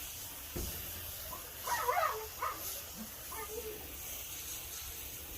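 A dog gives a few short whines or yips about two seconds in and again a little later, over a steady hiss of water spraying from a hose.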